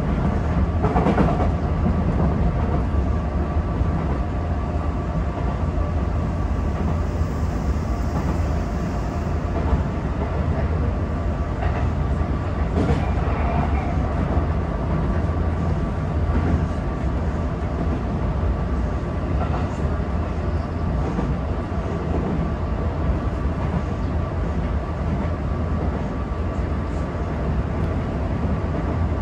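Tokyo Metro 18000 series electric train running at speed, heard from the driver's cab: a steady rumble of wheels on rail with a faint steady whine, and a few separate clacks as the wheels cross rail joints.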